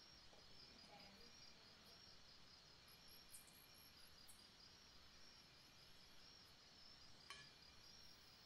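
Near silence: faint steady room hiss with a thin high whine, and one faint click near the end.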